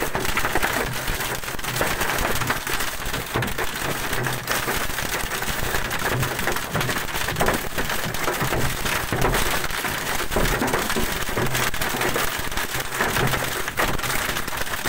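Heavy hail drumming on a car's roof and windscreen, heard inside the cabin as a dense, unbroken clatter of countless small impacts.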